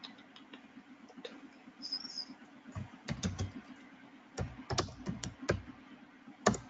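Typing on a computer keyboard: irregular keystrokes in short runs.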